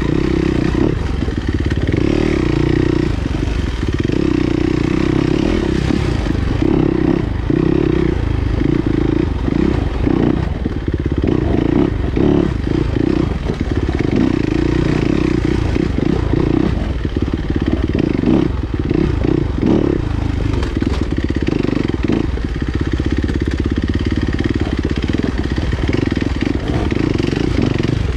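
Enduro motorcycle engine running on a trail ride, the throttle opening and closing over and over, with short knocks and rattles from the bike on rough ground.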